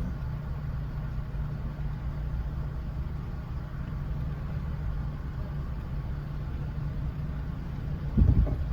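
Car engine idling, heard inside the cabin as a steady low hum, with a brief louder low rumble near the end.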